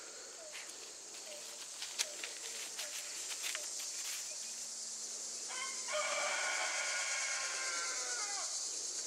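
A rooster crows once about halfway through, one long call of about three seconds that drops in pitch at the end. A steady high insect drone lies under it.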